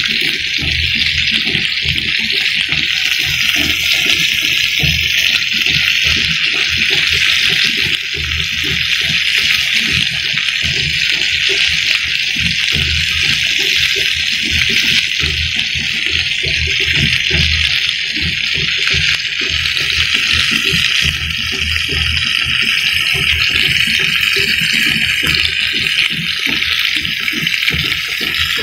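Tomatoes stuffed with seasoned ground pork frying in hot oil in a pan: a steady, loud sizzle with continuous crackling.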